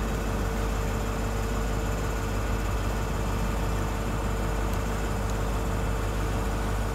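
Class 43 HST power car idling while standing at the platform: a steady diesel drone with a constant whine over a low hum.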